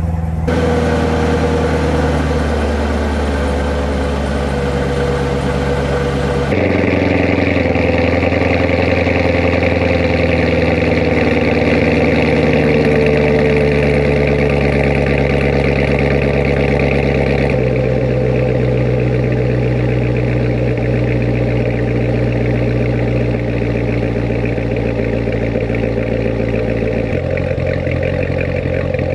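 Chevrolet C7 Corvette Z06's supercharged 6.2-litre LT4 V8 running steadily through its quad exhaust just after a cold start. The pitch and tone shift abruptly about a quarter of the way in, again past halfway and once more near the end, as the raised cold-start idle settles to a normal idle.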